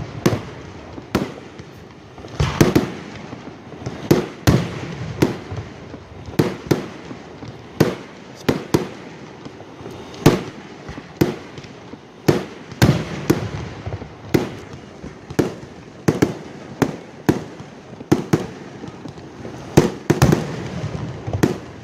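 Aerial fireworks going off in a steady barrage: sharp bangs one to two a second at irregular intervals, each with a short rumbling echo.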